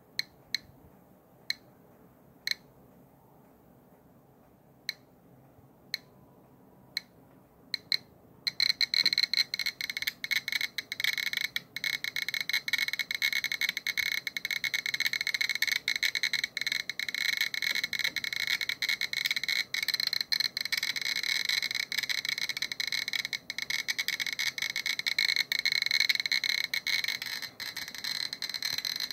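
Geiger counter's beeper clicking sparsely at first. About eight seconds in, the high-pitched clicks come so fast that they run together into a near-continuous chattering buzz. This is a high count rate from the gamma radiation of a uranium-238 metal sample, climbing past 600 counts per minute.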